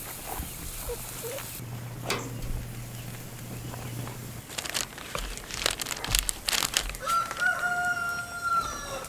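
A rooster crows once near the end, one long held call. Before it, a run of sharp clicks and knocks.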